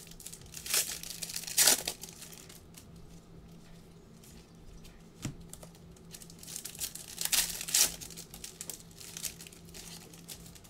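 Foil trading-card packs crinkling and tearing as they are ripped open by hand, in a few short crackly bursts, the loudest about two seconds in and again near the eight-second mark.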